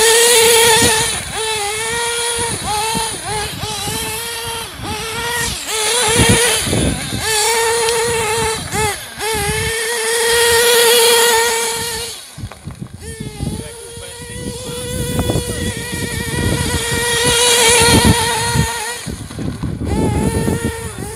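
Small nitro glow engine of an LRP S8 BX 1/8-scale RC buggy running at high revs, its pitch rising and falling over and over as the car accelerates and backs off. It drops away and fades for a couple of seconds about halfway through, then climbs again.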